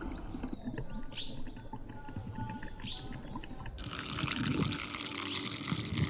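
Small birds chirping with quick rising calls. About four seconds in, the steady hiss and splash of liquid being poured into a cup joins them.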